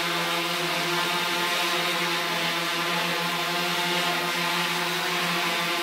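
Quadrotor's electric motors and propellers buzzing steadily in flight: a level hum of several tones over a hiss of moving air.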